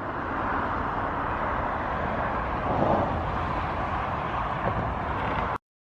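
Steady outdoor hum of distant traffic, with no distinct events, cutting off suddenly about five and a half seconds in.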